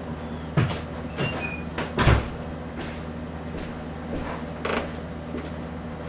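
Casablanca Delta II polished brass ceiling fan spinning, its motor giving a steady low hum. Several irregular knocks and creaks sound over it, the loudest about two seconds in.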